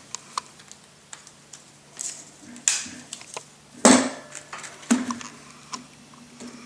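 Metal clicks and snaps from a stainless steel multitool being handled, with a few louder scraping snaps about two, three, four and five seconds in.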